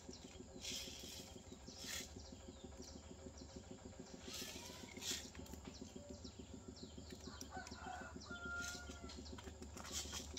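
Slow-release fertilizer granules rattling in a plastic jar as it is opened and tipped out by hand, in a few short bursts. A bird calls briefly a few times near the end, over a steady low hum.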